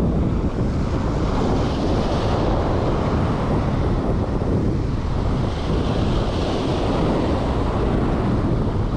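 Wind buffeting the microphone over surf breaking and washing against the granite rocks of a jetty, the wash swelling up twice.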